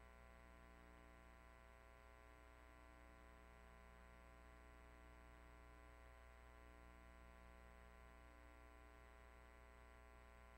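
Near silence: a faint, steady electrical hum with its overtones.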